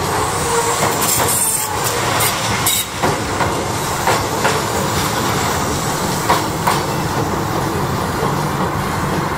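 Tobu 6050 series electric train running past at close range: a steady rumble of wheels on rail, with sharp clacks as the wheelsets cross rail joints, several coming in quick pairs.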